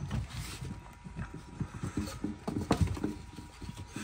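Pitbull puppies scampering about, their paws pattering in quick, irregular steps, with a few short puppy cries in the middle.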